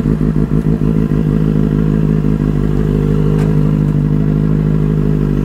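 Benelli 600i's four-cylinder engine running close by at low speed. It throbs unevenly for the first second or so as the bike creeps in, then settles into a steady idle.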